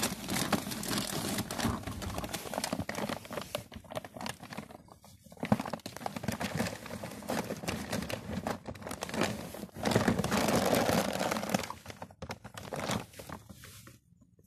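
Plastic bag rustling and crinkling with small knocks as a hi-fi stereo unit is handled and wrapped in it. The rustling pauses briefly about a third of the way in, gets louder for a couple of seconds later on, and dies down near the end.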